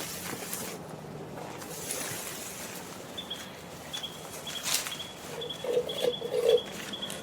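Animal calls outdoors: a run of short, high, repeated chirps starting partway through, and a few short lower calls in quick succession near the end, with a single sharp click between them.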